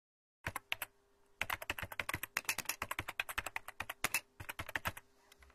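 Computer keyboard typing: a quick run of key clicks starting about half a second in, with a brief pause near the end before it trails off.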